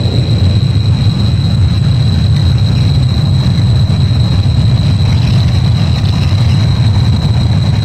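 Seismometer recording of a magnitude 3.6 earthquake played back as sound: a loud, steady low rumble with a thin constant high tone above it. This is the lingering echo of the quake's seismic waves.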